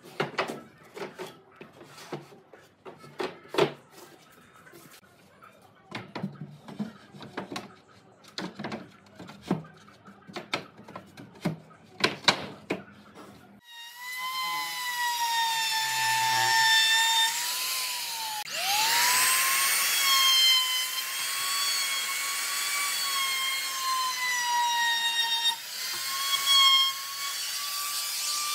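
Wooden bed slats being set and pressed into a bed frame: irregular knocks and clatters of board on board. About 14 seconds in, a small handheld trim router starts and runs with a steady high whine along the edge of a wooden headboard. About 18 seconds in it briefly cuts out and spins back up, rising in pitch.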